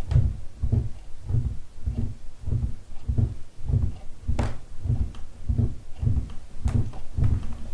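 Steady low thumps, about three every two seconds, with a sharper click now and then, the clearest about halfway through and again near the end.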